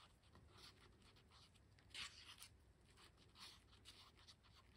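Faint scraping of a wooden stick against the inside of a paper cup as thick epoxy resin is stirred, a few soft strokes, the clearest about two seconds in.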